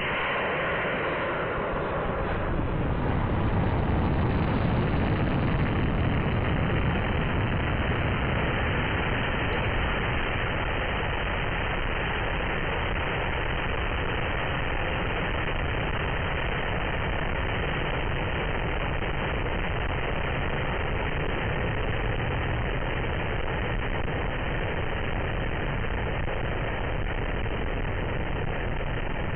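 Model rocket's onboard action camera picking up the flight: a sudden rush of noise as the motor ignites, then steady wind rushing over the airframe and the camera's microphone as the rocket climbs. The noise eases slightly after about eight seconds.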